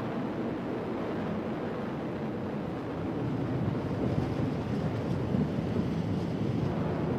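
Atlas V rocket with its RD-180 main engine in powered ascent, heard as a steady, deep rumbling roar that grows slightly louder about halfway through.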